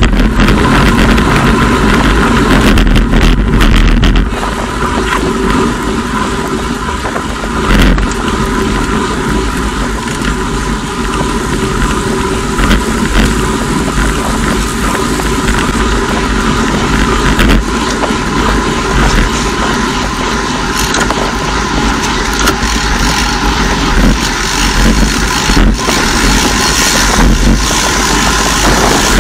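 Wind rushing and buffeting over a bike-mounted camera's microphone, mixed with road-bike tyre noise, while riding in a group at speed. A faint steady whine sits under the noise.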